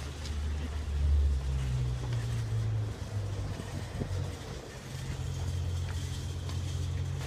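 A car engine running at low speed: a low steady hum that shifts in pitch a few times, with a couple of light knocks.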